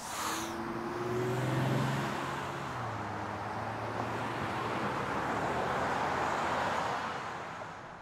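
City street traffic: cars driving through an intersection, a steady wash of road noise, with an engine's hum in the first half that fades away.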